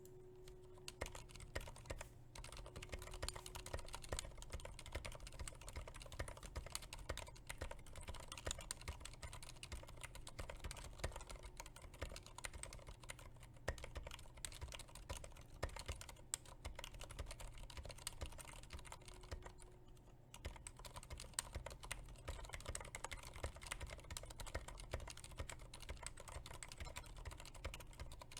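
Quiet, continuous typing on a Keychron K8 mechanical keyboard fitted with Aliaz silent switches: a fast, irregular run of key presses, with a brief pause about twenty seconds in.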